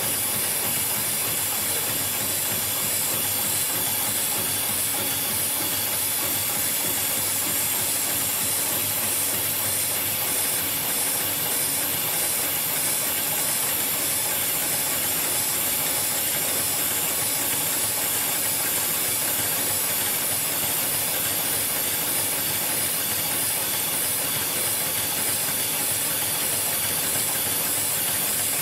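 HIGHTEX 71008 heavy-duty programmable pattern sewing machine running steadily as it stitches its programmed pattern through thick, dense rope with heavy size 277 thread. It makes an even, hissy mechanical whir with no break.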